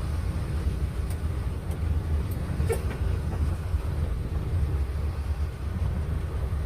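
Steady low outdoor rumble with a few faint ticks about one to three seconds in.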